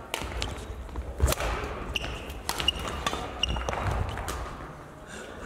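Badminton rally on an indoor court: sharp racket strikes on the shuttlecock and footfalls on the sports floor, the loudest strike about a second in, with short sneaker squeaks in the middle, all echoing in a large hall.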